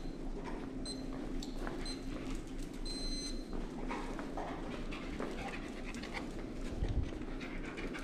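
Black retriever panting steadily while searching, with scattered light clicks and a few short high pings.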